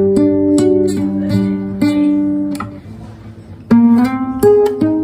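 LAG OC80 acoustic guitar played note by note, each plucked note ringing out. The playing trails off about three seconds in and starts again with a fresh, louder phrase nearly a second later.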